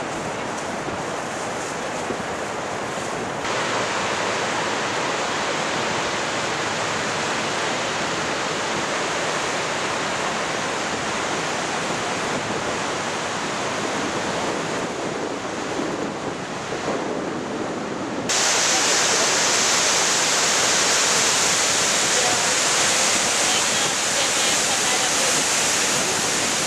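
Steady roar of water pouring over Niagara Falls, with wind noise on the microphone. The roar steps up abruptly twice, about three seconds in and again after the middle, getting louder and brighter each time.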